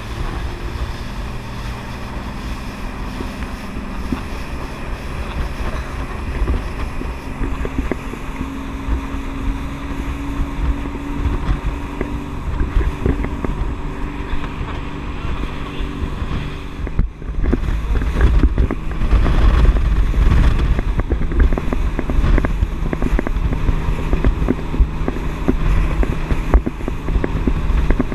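Small speedboat's engine running at speed with a steady drone, over water rushing past the hull and heavy wind on the microphone. About 17 seconds in there is a short break, after which the low wind rumble is louder.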